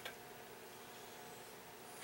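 Near-quiet workbench room tone with a faint steady hum, and one small click right at the start as small clock parts are handled.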